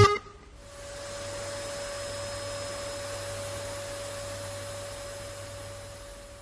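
Robot vacuum cleaner running: a steady whir with a fixed whine, coming up just after the start and easing off slightly near the end.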